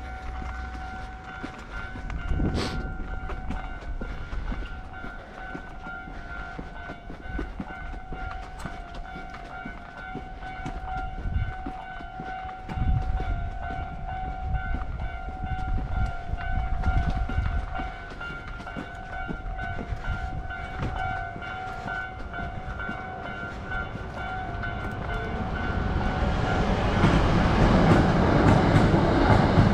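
Japanese level crossing alarm bell ringing steadily, then about 26 seconds in a Hankyu 9000 series electric train runs past over the crossing, its rail noise growing until it is the loudest sound near the end.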